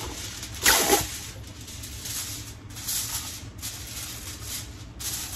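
Aluminium foil crinkling and crackling as it is handled, loudest in a burst just under a second in, then in softer rustles.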